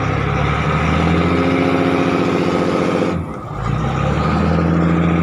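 Passenger boat's engine running steadily, with a brief dip in level about three seconds in before it picks up again.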